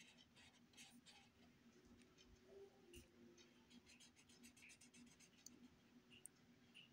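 Faint scratching of a felt-tip marker rubbed back and forth on paper, in quick repeated strokes, as an area is colored in black.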